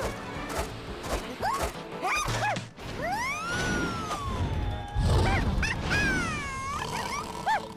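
Cartoon soundtrack: music with sliding whistle-like sound effects, short rising-and-falling chirps, then a long tone that rises about three seconds in and slowly falls, and another falling glide near the end.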